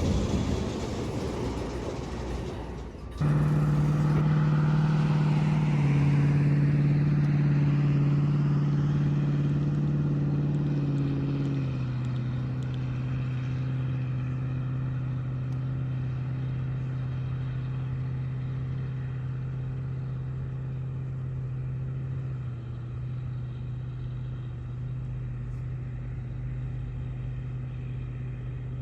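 A steady, low drone of several stacked tones from a locomotive starts abruptly about three seconds in. It steps down slightly in pitch about twelve seconds in and again near the end, and slowly fades as it moves away.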